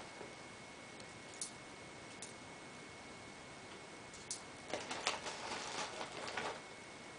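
Small sharp clicks of airsoft BBs being pressed one by one into a gas pistol's stick magazine while its strong follower spring is held down by hand: a few isolated clicks, then a quicker run of clicks and handling noise about five seconds in.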